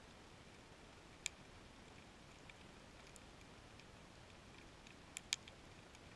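Faint steady hiss picked up underwater, broken by sparse sharp clicks: one loud click about a second in, two close together near the end, and fainter ticks between.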